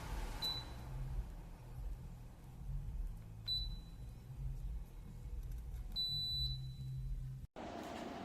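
Three high electronic beeps from a Dreo Cruiser Pro tower fan's control panel as settings are changed, the third held longer, over a low rumble.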